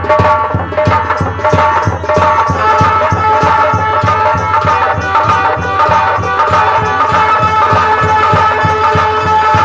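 Nautanki theatre music: a fast, steady drumbeat on folk drums under a held, droning reed melody, likely a harmonium.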